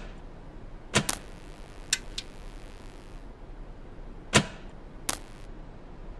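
A series of short, sharp sound effects: about six quick hits and swishes, some close together in pairs and some trailing a brief ring.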